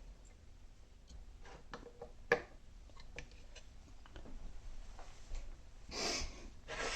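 Faint, scattered metallic clicks and ticks of a dimple lock being worked with lock picks, with one sharper click about two seconds in. Two short rushing noises follow near the end.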